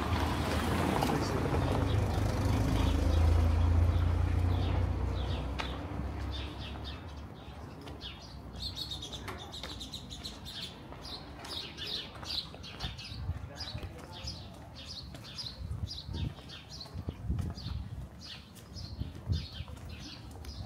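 A car engine rumbles as it passes close by in a narrow lane, loudest about four seconds in and fading by six seconds. From about eight seconds in, small birds chirp rapidly and keep on chirping.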